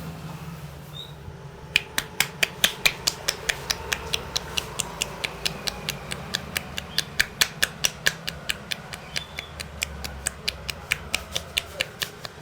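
A massaging barber's hands striking rapidly and evenly in a percussive tapping massage, about five sharp slaps a second, starting about two seconds in. A low traffic hum runs underneath.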